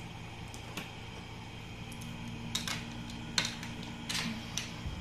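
Steady low hum with a handful of short clicks and rustles scattered through it, the sharpest about three and a half seconds in, and a faint steady tone through the middle.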